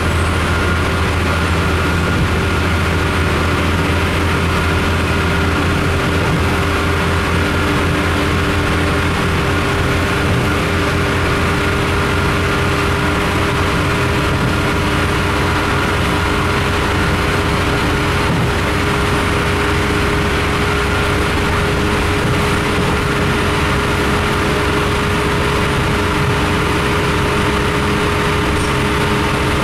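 RA2 diesel railbus heard from inside the passenger saloon while running at speed: a steady diesel drone with a strong low hum and a few held tones, over the even running noise of the train.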